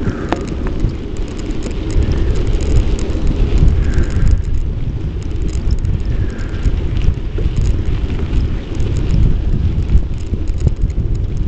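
Wind buffeting the microphone of a bike-mounted Polaroid Cube camera while riding: a loud, gusting low rumble, with faint ticks and rattles from the bicycle.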